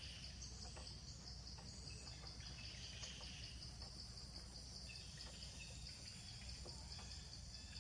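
Insects trilling in a steady, high, evenly pulsing chorus, with a few faint chirps and small clicks.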